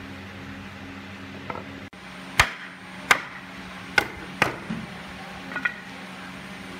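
Sharp wooden knocks as a hardwood door stile and rail are knocked together during a dry-fit of the frame joint: four loud knocks a little under a second apart, then two lighter ones.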